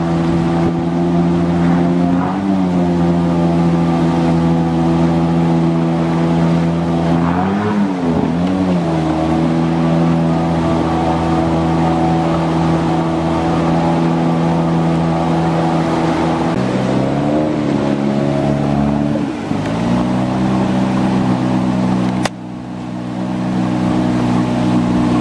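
Engine running steadily under way, its pitch dipping and recovering a few times with throttle changes; near the end a sharp click comes with a sudden drop in level, and the engine then builds back up.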